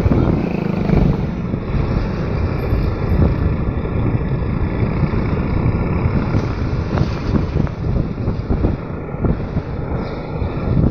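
Wind buffeting the microphone over the running engine of a vehicle moving along a road: a loud, steady, rough rumble.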